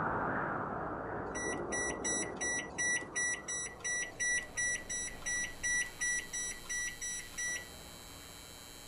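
A rapid, even run of short electronic beeps, several a second, over a noise wash that fades away. The beeps stop shortly before the end.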